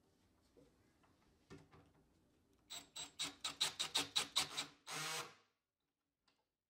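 Cordless drill driving a screw up into the underside of a wooden tabletop to fasten it to the base. The trigger is pulsed in short bursts, about five a second, then held for one last half-second run as the screw seats. A few faint clicks come before it.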